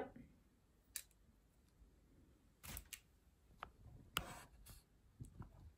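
Near silence with a few faint, short clicks and rustles of handling, spaced about a second apart.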